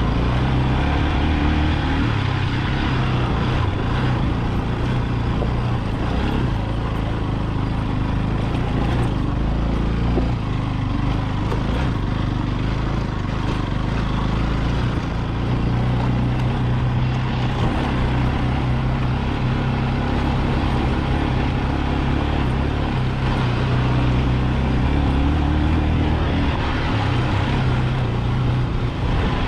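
Motorcycle engine running under way with wind noise, its pitch stepping up and down a few times as the speed changes.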